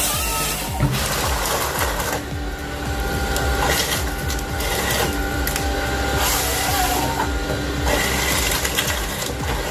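A heavy machine running, with a steady low engine hum under a rapid mechanical rattle and bursts of harsher noise about once a second.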